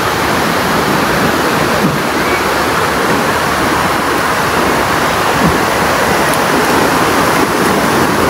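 Steady, continuous rush of surf breaking along a sandy beach.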